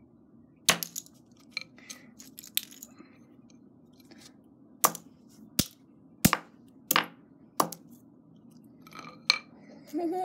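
Wooden-handled hammer smashing earbuds against a hard floor: sharp cracks at irregular intervals, about a dozen in all, with smaller clicks and rattles of broken plastic between them. A voice exclaims near the end.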